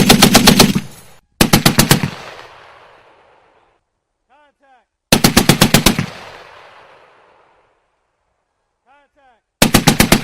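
Browning M2 .50 caliber heavy machine gun firing short bursts of about half a second to a second each, at roughly ten rounds a second. There is a burst at the start, another about a second and a half in, one about five seconds in and one near the end, each trailing off in a long echo.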